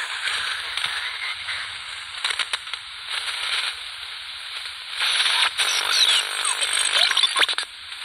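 Static hiss and crackle from the speaker of an Atlanfa AT-105 portable multiband receiver being tuned between shortwave stations, with a few brief whistling tones sliding in pitch. The noise grows louder about five seconds in.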